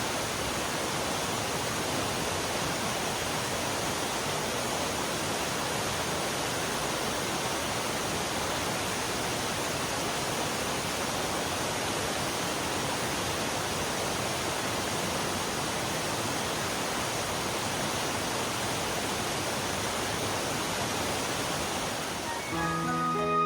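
Steady rushing of a mountain valley stream, water running over rocks. Music comes in near the end.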